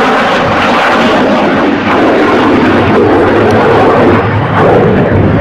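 A CF-18 Hornet's twin General Electric F404 turbofan engines at takeoff power as the jet lifts off and pulls into a steep climb: a loud, steady jet noise.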